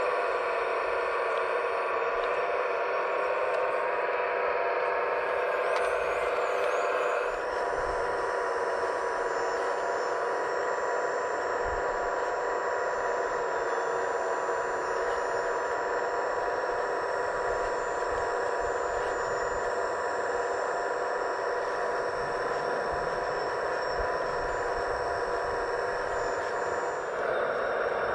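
Electric motors and hydraulic pump of 1/15-scale RC construction machines running, a steady whine that drops slightly about seven seconds in and shifts again near the end.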